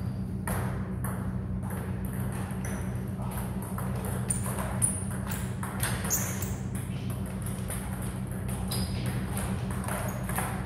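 Table tennis ball being struck back and forth in a rally, sharp clicks of ball on bats and table about two a second, over a steady low hum.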